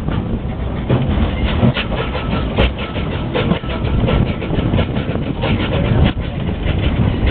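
Steam tram running along its track, heard from the open top deck: a steady low rumble with rapid, irregular clattering and rattling from the cars.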